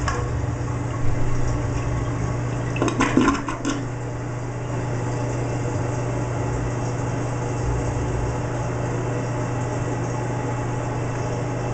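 1989 Kohler Wellworth toilet finishing its flush: water swirling down the bowl, with a brief louder gurgle about three seconds in as the bowl drains. It then settles into the steady hiss of the toilet refilling.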